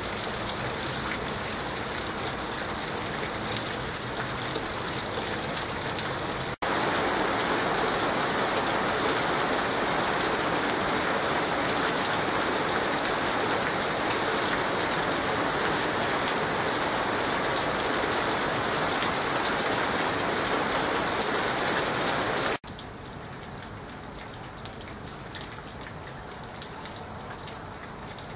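Rain falling on surfaces, a steady even hiss. It gets abruptly louder about six seconds in, then drops sharply to a lighter patter with scattered ticks of drops for the last few seconds.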